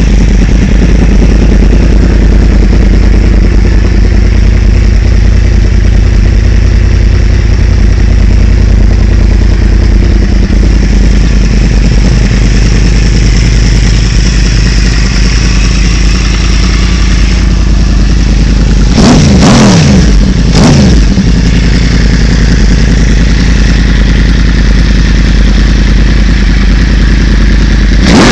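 Motorcycle engine idling loudly and steadily, blipped twice in quick succession about two-thirds of the way through, with another rev beginning at the very end.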